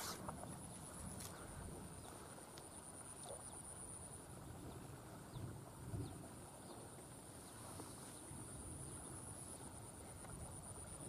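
Steady high-pitched drone of insects, one unbroken trill that swells and eases slightly, over faint low background noise, with a couple of faint clicks near the start.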